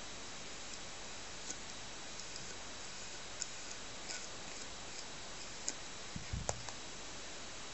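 Light, irregular clicks and ticks of a grooming brush working through a Shih Tzu's long coat, over a steady hiss. A soft low thump with a sharper click comes about six and a half seconds in.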